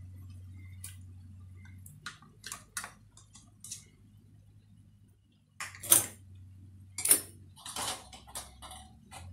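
Metal spoon clinking and scraping against a plastic cup and a pan while thick curd is spooned in: a few light clicks, then sharper knocks about six to eight seconds in. A low hum comes and goes underneath.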